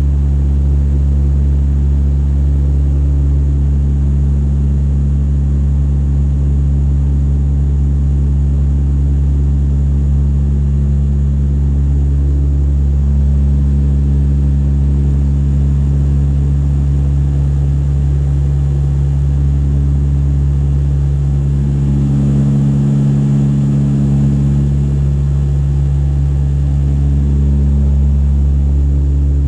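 Steady drone of a Dash 8-100's twin turboprop engines and propellers heard inside the passenger cabin: a deep, even hum with a few steady tones above it, swelling slightly about two-thirds of the way through.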